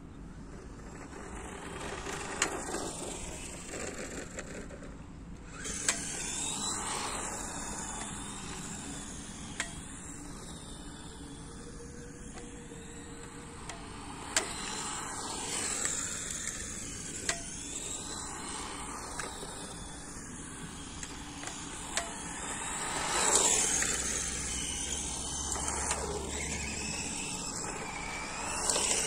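Stock electric motor of a radio-controlled model car whining as it runs on asphalt, its pitch sweeping up and down again and again as the car speeds up and slows. Sharp single clicks come every few seconds, typical of the stick-type transmitter's loud clicking.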